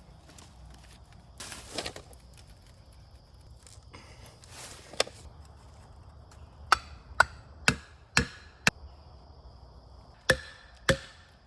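Sharp blows of a tool striking wood, freeing a chainsaw pinched in a tree: about eight strikes, with a quick run of five about half a second apart midway and two more near the end.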